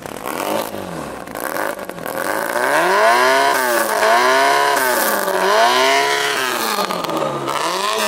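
Classic Mini's engine revved hard through a loud, open exhaust, the revs rising and falling again and again, about four times.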